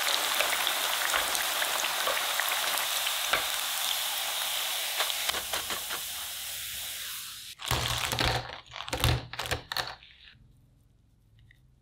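Potato pieces deep-frying in hot oil, a steady crackling sizzle with small clicks from a wire skimmer, fading out about seven seconds in. Then a few loud knocks and clatters over a couple of seconds.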